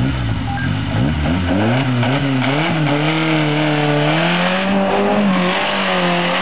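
Suzuki Samurai's engine revving hard under load as the truck drives through deep mud, its pitch climbing over the first three seconds and then held high.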